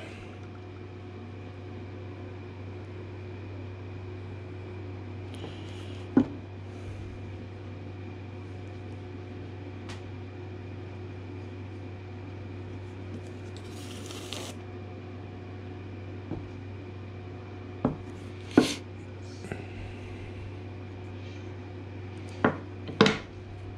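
Wooden pieces knocking against each other and against a wooden workbench as glued parts are set in place: scattered sharp knocks, the loudest about six seconds in and near the end. A steady low hum runs underneath.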